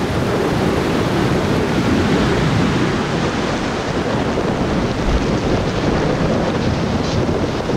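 Floodwater rushing in a storm, with strong wind buffeting the camcorder microphone: a steady, loud rush of noise.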